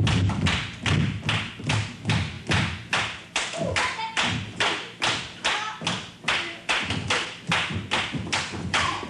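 A steady beat of sharp strikes, about two and a half a second, keeping time for a dance rehearsal, with lower thuds of feet on the studio floor in the first couple of seconds.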